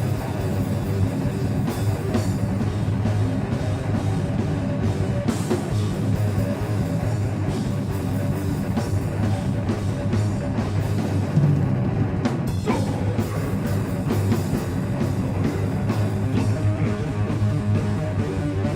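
Heavy metal band playing live, with distorted electric guitars, bass and rapid, driving drumming on a full drum kit.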